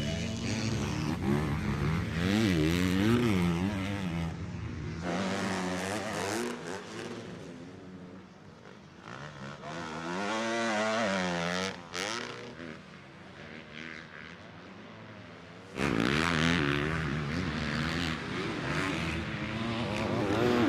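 Honda CRF four-stroke motocross bike engine revving up and down as it is ridden, pitch rising and falling with throttle and gear changes. It comes in several short clips that cut abruptly, at about 4, 12 and 16 seconds in.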